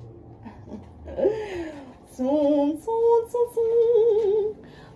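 A woman's voice singing without accompaniment: a rising-and-falling vocal glide about a second in, then a few long held notes with a wavering vibrato.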